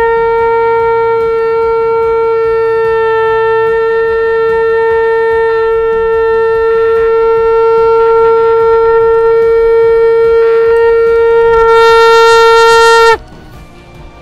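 Conch shell (shankh) blown in one long steady note lasting about thirteen seconds, growing louder and brighter near the end before cutting off suddenly.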